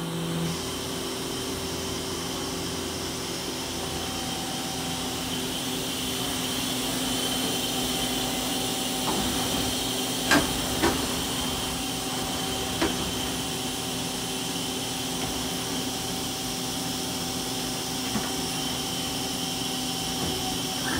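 Steady hum and hiss of a powered-up Mazak CNC turning center standing idle, holding several fixed tones. A few sharp clicks come about halfway through.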